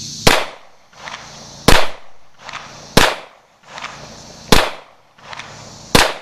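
Five pistol shots from a Springfield XDM 5.25 in .40 caliber, fired one at a time about one and a half seconds apart, each followed by a fainter crack.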